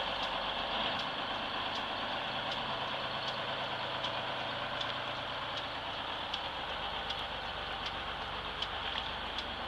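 Diesel engine of a GMC New Look 'fishbowl' transit bus running steadily, with a faint regular tick about every three-quarters of a second.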